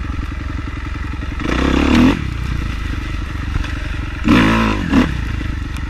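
Dirt bike engine idling with a fast steady beat, blipped up and back down twice, about one and a half seconds in and again near four and a half seconds.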